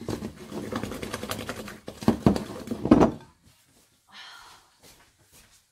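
Wooden spoon stirring and scraping thick cookie dough in a mixing bowl, a busy run of knocks and scrapes that stops about three seconds in, followed by a few faint, brief sounds.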